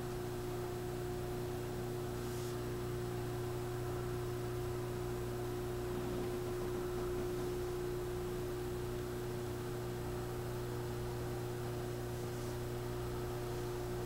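Steady electrical hum with a few fixed tones, unchanging throughout.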